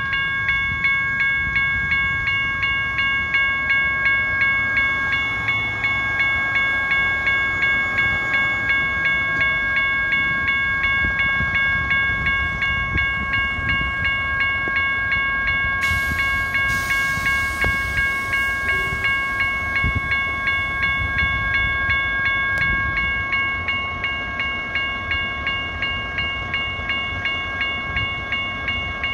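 Railroad crossing warning bell ringing steadily at about two strokes a second while a train rolls past with a low rumble. A brief hiss comes about sixteen seconds in.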